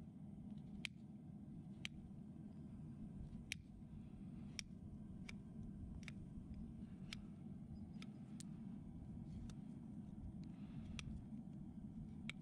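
Sharp metal clicks, roughly one a second at an uneven pace, from a farrier's long-handled hand tool working the shoe and nails on a horse's front hoof, over a faint low steady rumble.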